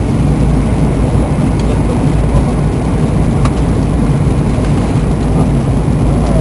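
Airliner cabin noise while descending to land: the engines and the air rushing past the fuselage, heard from inside the cabin as a steady, low, even rumble.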